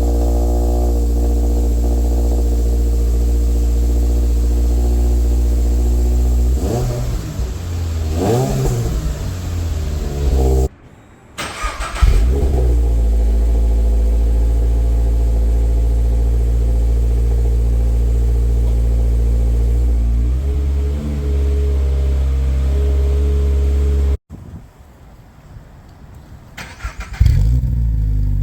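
Subaru BRZ's 2.4-litre FA24 flat-four running through a Scorpion non-resonated GFP-back exhaust. It idles steadily, is revved up and back down several times about seven to twelve seconds in, and settles into idle again. It cuts abruptly twice, goes quieter for a few seconds near the end, and then revs again.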